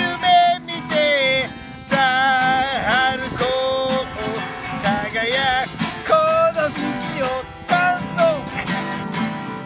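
Two acoustic guitars strummed together, with a wavering, vibrato-laden melody line carried over them in short phrases.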